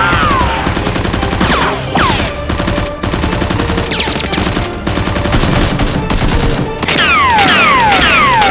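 Rapid bursts of automatic gunfire sound effects in a staged blaster battle, with falling whistle-like tones sweeping over it about two seconds in, about four seconds in and several more near the end.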